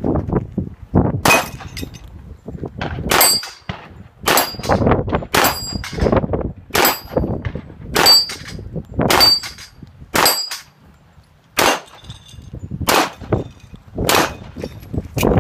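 Handgun shots fired one at a time, roughly one a second, about a dozen in all, with a short gap just after the middle. Many shots are followed by the brief high ding of a steel target ringing from a hit.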